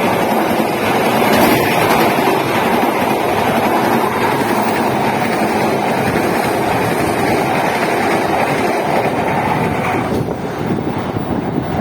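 A train running past at speed: a loud, steady rush and rumble of wheels on rail, easing off about ten seconds in.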